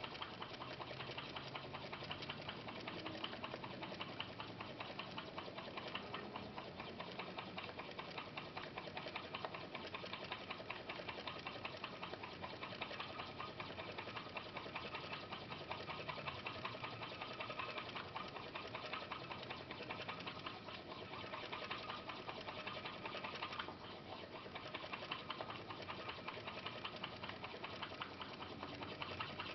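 Home-made putt-putt (pop-pop) steam motor made from a water-filled aluminum arrow shaft with a tiny water balloon on its end, running with a rapid, steady swishing pulse. Steam forms in the heated shaft and condenses, pushing water in and out in quick beats, vaguely reminiscent of a motor.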